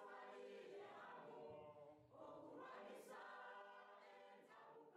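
Faint choir of voices singing, in sung phrases with short breaks between them.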